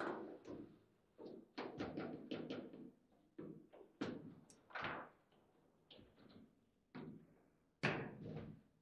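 Foosball table in play: irregular sharp knocks and clacks of the ball being struck by the figures and the rods being worked, about a dozen in all, some in quick pairs, with short pauses between.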